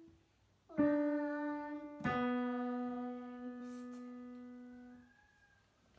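Two piano notes about a second apart close a children's song. The second rings on and fades away over about three seconds.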